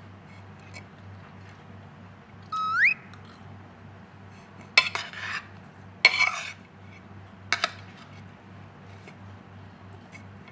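Spoon or fork clinking and scraping on a plate three times while eating, each a sharp clatter with a short scrape after it. A brief rising squeak comes about two and a half seconds in, over a steady low hum.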